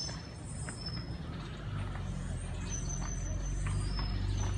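A motor engine running with a low steady hum that grows louder from about two seconds in.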